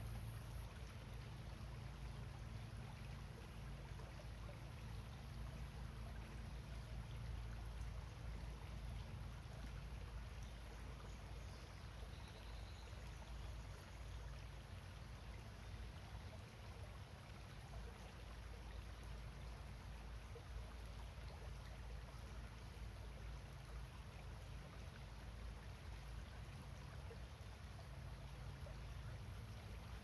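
Shallow creek running over stones and gravel, a steady trickling wash of water with a low rumble underneath.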